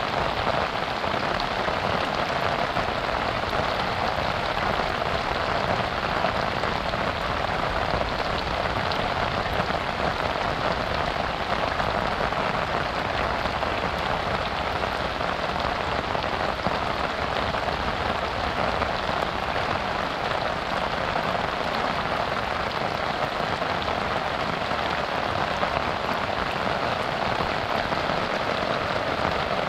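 Steady rain falling, a dense even hiss with no let-up.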